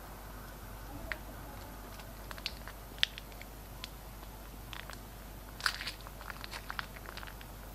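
Glossy slime being handled by hand, giving off small sharp clicks and crackling pops. The pops are sparse at first and come thicker after about five and a half seconds.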